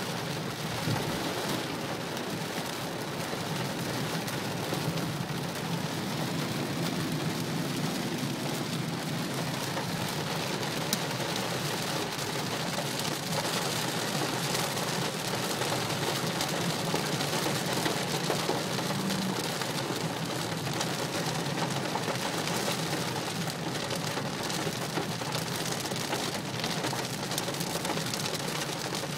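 Heavy rain drumming steadily on the car's roof and windshield, heard from inside the cabin, over a low steady hum of road noise.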